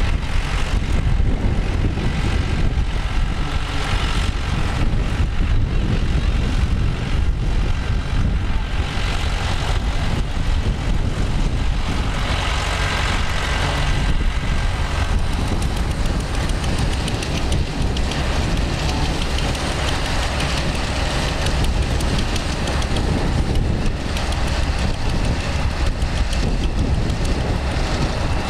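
Diesel tractor engines running steadily under load while ploughing.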